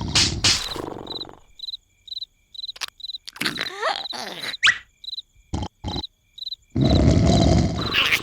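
Cartoon larva snoring loudly: a long rasping snore at the start and another near the end. In the quiet between, crickets chirp in a steady rhythm, with a short whiny vocal glide and two quick knocks in the middle.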